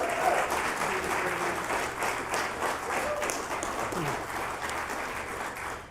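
Audience applauding, with a few cheers at the start. The clapping gradually dies away.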